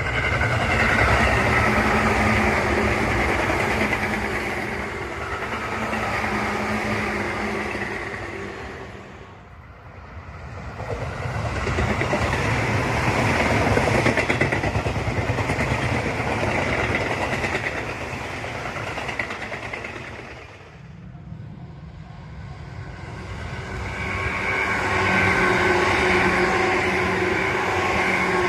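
Tobu Tojo Line electric trains passing at close range, in three separate passes split by abrupt cuts. The first and last passes carry a steady electric motor whine over the rumble of the train; the middle one is mostly wheel and rail rumble.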